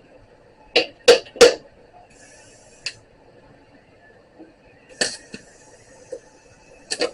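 Sharp metallic clinks and knocks of metal tools and parts being handled against metal: three in quick succession about a second in, then single knocks spaced a couple of seconds apart.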